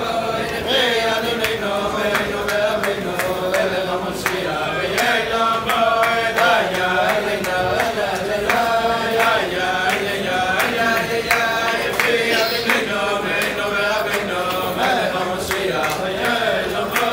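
A group of men singing a chant-like tune together, steady and unbroken, with scattered sharp clicks through it.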